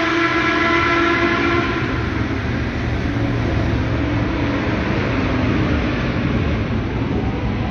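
A high-revving motorcycle engine holding a steady, slightly falling note that fades away over the first few seconds, leaving a steady rushing rumble.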